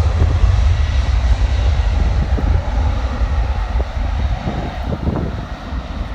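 Boeing 767-300ER's General Electric CF6 turbofan jet engines running, a loud deep rumble with a thin steady whine above it, fading gradually as the airliner moves away.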